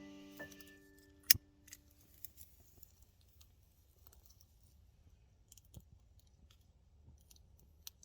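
The tail of piano music dies away at the start; then one sharp, loud click about a second in, followed by scattered small clicks and handling noises.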